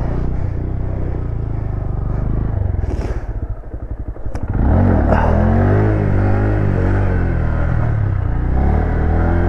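Honda Grom's small single-cylinder engine running at low revs, easing off around four seconds in with a sharp click. It then picks up louder, its revs rising and falling as the bike is ridden through a trick.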